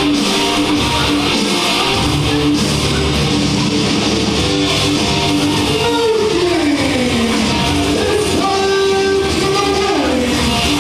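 Wrestler's entrance music: loud guitar-driven rock with strummed electric guitar, with falling pitch slides about six seconds in and again near the end.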